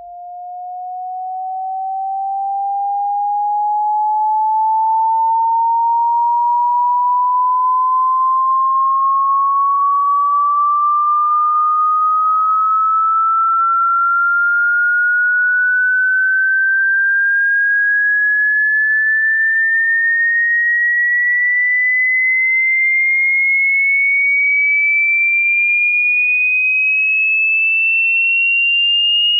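A single electronic pure tone, used as a dog whistle sound effect, fading in over the first few seconds and then rising slowly and evenly in pitch from a mid whistle to a high, piercing one.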